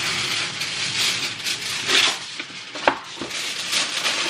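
Aluminum foil crinkling and rustling in uneven bursts as a sheet is pulled off the roll and pressed down over a disposable foil pan, with one sharp tap about three seconds in.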